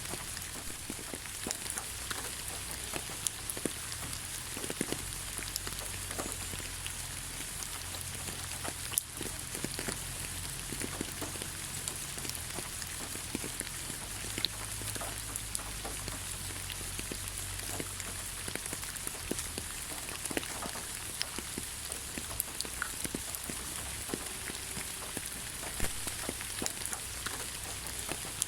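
Rain falling on the ground: a steady hiss with many individual drops ticking and pattering throughout, and one sharper tap about nine seconds in.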